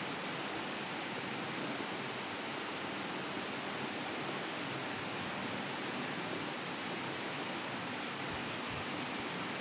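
A steady, even hiss with no other sound standing out.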